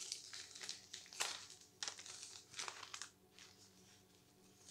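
Paper envelope crinkling and rustling in short bursts as it is handled and pulled open by hand, going quieter for about the last second and a half.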